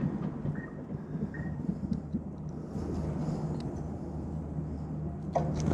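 Steady low hum and road rumble of the Ecotric 500 fat-tire electric bike riding along, with three short high chirps in the first second and a half.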